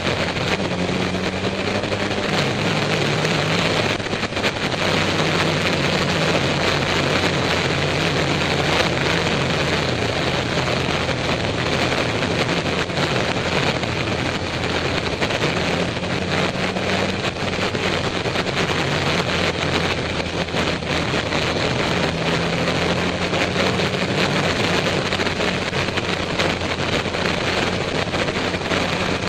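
Motorcycle engine running at road speed under heavy wind noise on the microphone, its note rising and falling with throttle and gear changes.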